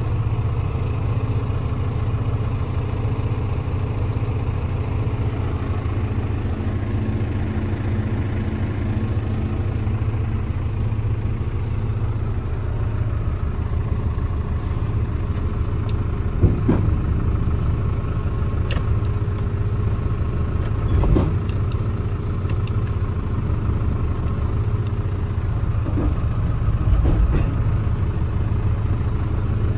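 Unimog U20's diesel engine running steadily, heard from inside the cab, while it drives the hydraulic tipper body. A few sharp clunks come in the second half.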